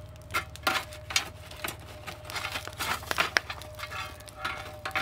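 Small shovel scraping and shifting coals in a burning coal forge, with irregular crackles and scrapes from the coal, over a steady low hum.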